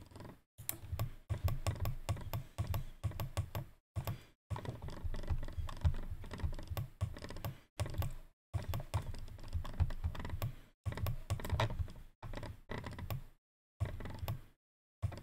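Rapid clicking and tapping of a computer mouse and keyboard, in bursts broken by several short gaps of silence.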